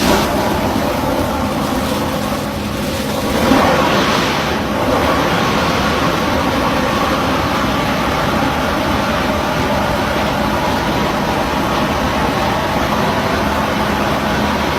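Drilling rig machinery running steadily with a low engine hum, and a louder rush of noise about three and a half seconds in.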